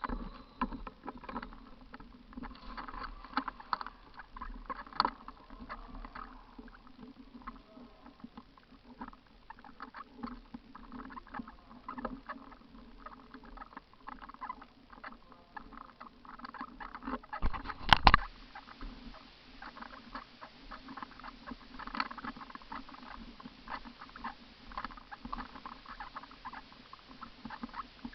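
Irregular rustling and small crackling clicks close to the microphone, with one loud knock about two thirds of the way through.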